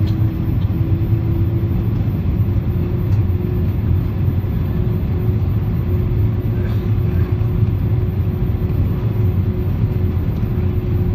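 Airbus A340 airliner on approach, heard inside the passenger cabin: a steady deep engine and airflow rumble with a hum that creeps slightly up in pitch.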